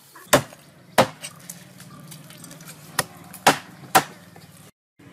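Knife chopping into a tilapia on a wooden cutting board: five sharp, loud knocks, two in the first second and then three about half a second apart later on.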